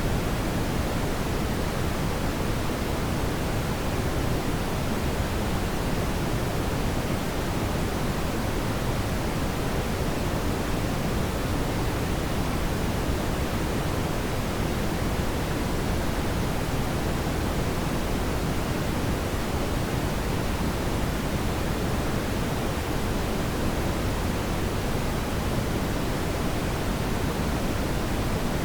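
Brown noise: a steady, deep rushing hiss, strongest in the low end and falling off toward the highs, unchanging throughout.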